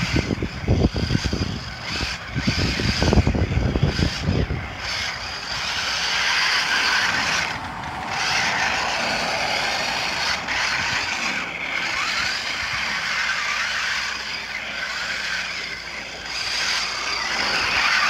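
Toy remote-control monster truck driving over snow, its motor and gears whirring steadily with small rises and falls in pitch as it runs. Low rumbling thumps fill the first few seconds.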